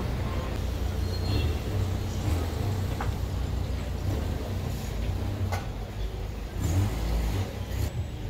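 Low, steady rumble of street traffic, with a few faint clicks.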